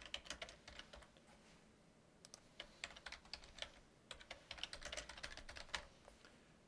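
Typing on a computer keyboard, faint: three short runs of quick keystrokes with brief pauses between them.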